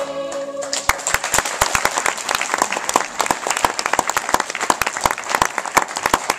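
A sung final chord from the cast and band dies away in the first second. Then a theatre audience breaks into sustained applause, a dense crowd of hand claps.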